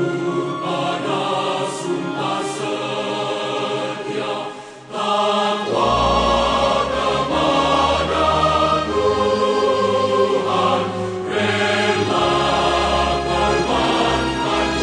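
Background music with a choir singing sustained notes; about five seconds in it dips briefly, then a deep bass part comes in and the music grows fuller.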